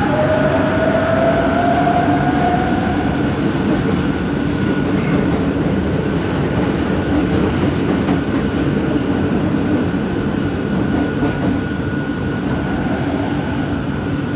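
Bombardier Innovia ART 200 train running, heard from inside the car: a steady rumble of running and rolling noise. Over the first few seconds a motor whine rises in pitch, the linear induction motor under acceleration, then fades. A thin steady high whine carries on until shortly before the end.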